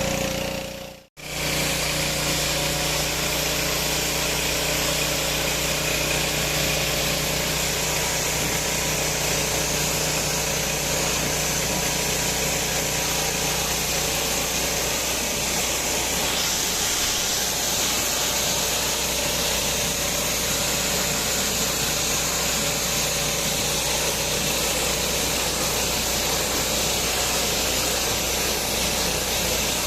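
INGCO GHPW2003 gasoline pressure washer's 6 HP engine running steadily, with a broad hiss over it. The sound cuts out briefly about a second in.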